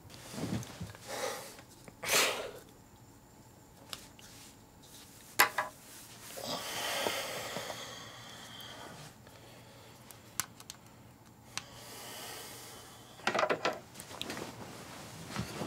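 Quiet room sounds: a man breathing and shifting about, with faint rustles and a few small sharp clicks, the loudest of them about five seconds in.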